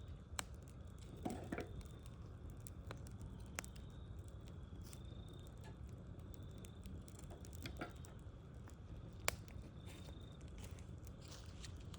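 Wood fire burning with a steady low rumble and sparse pops and crackles, the sharpest pop about nine seconds in. A faint high note repeats now and then in the background.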